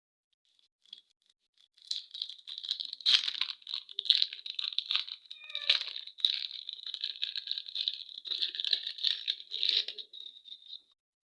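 Plastic candy wrapper being crinkled and torn open by hand: a dense run of crackles and sharp rustles that starts about two seconds in and stops shortly before the end.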